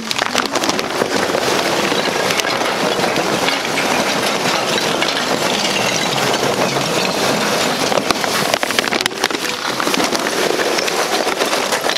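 Lump charcoal pouring out of a paper bag into a steel charcoal basket. The lumps make a continuous dense clatter and rattle as they tumble onto the grate and each other.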